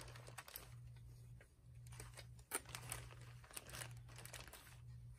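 Faint crinkling and rustling of a clear plastic zipper bag of paper clippings being handled, with scattered light clicks. A low hum underneath pulses on and off about once a second.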